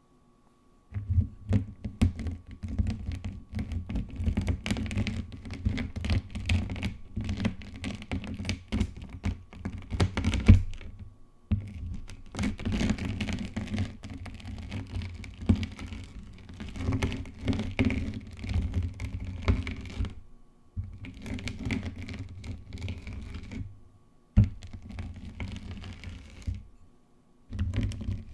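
A block of gym chalk rolled and squeezed close to the microphone, crumbling with dense crackling pops over soft thuds, in bouts broken by a few short pauses.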